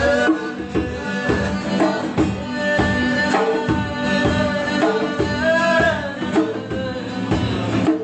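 Live jam of guitars, keyboard and a hand-played conga drum in a fusion style, with voices singing along.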